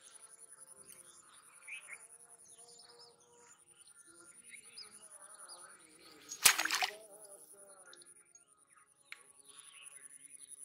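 Small birds chirping repeatedly in the background, with one short, sudden, loud burst of noise about six and a half seconds in.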